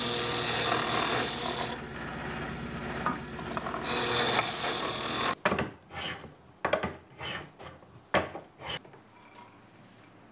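A drill press with a cutter runs steadily, milling into a wooden Japanese plane block. About five seconds in, it cuts to a quick run of short strokes of a small hand plane shaving the wood of a block.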